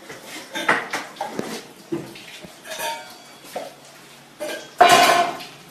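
Metal pots and stainless-steel cups clinking and clattering as they are handled in a kitchen, with a brief, louder burst of noise about five seconds in.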